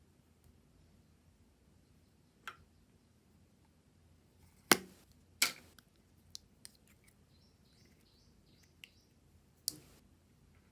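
Putty slime being handled and mixed: scattered sharp pops and clicks, the two loudest close together about halfway through, with a few smaller clicks after.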